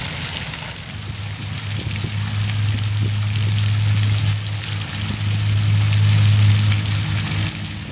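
Fountain water splashing into the pool in a steady hiss, with a loud low steady hum from about a second in until shortly before the end.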